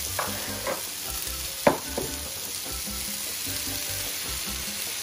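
Squid and prawns sizzling steadily in oil in a wide pan of sautéed vegetables, stirred with a wooden spatula, with a few sharp knocks of the spatula in the pan, the loudest about a second and a half in.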